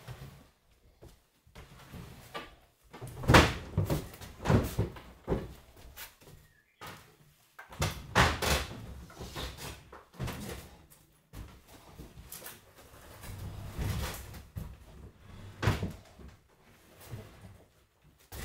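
A series of irregular knocks and bangs of old wooden furniture being handled and broken up, the loudest about three seconds in.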